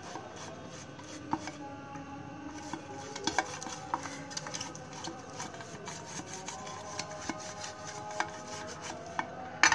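Ghee being rubbed around a square vessel to grease it: steady soft rubbing with scattered light clicks.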